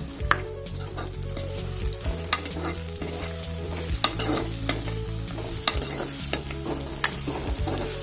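A metal ladle stirs and scrapes pork belly, potatoes and onions in a black wok as they fry without added oil, with a light sizzle. Sharp clicks of the ladle against the pan come every second or so, over a steady low hum.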